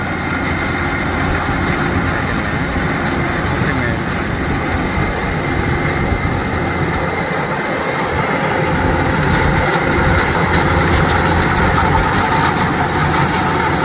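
Kubota DC-105X rice combine harvester running steadily while cutting, its diesel engine and threshing machinery making a continuous hum with a steady higher whine on top, growing a little louder as it comes closer.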